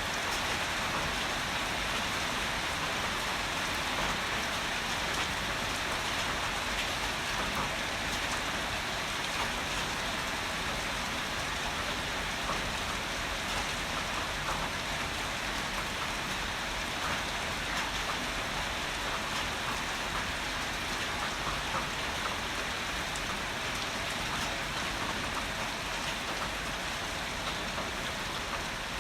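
Heavy rain falling steadily, a dense even hiss with individual drops pattering through it.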